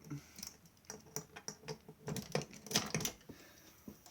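A quick string of small clicks and rattles, busiest and loudest about two to three seconds in: the metal cabinet of a fire alarm panel being unlocked, opened and handled.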